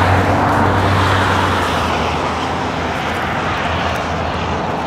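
Steady road noise of a car driving on a highway: tyre roar with a low engine hum, getting slightly quieter toward the end.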